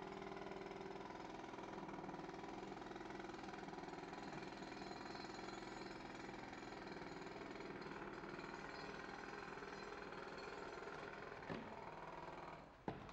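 A steady mechanical drone, like a motor running, holds at a constant pitch and cuts off near the end. Two short knocks come just before it stops.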